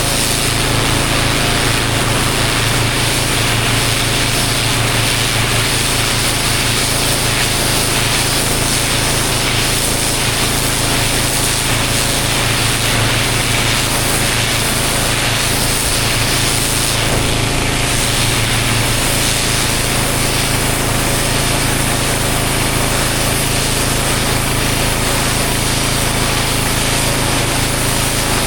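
Pressure washer engine running steadily while the high-pressure water jet hisses against the block paving during a driveway clean.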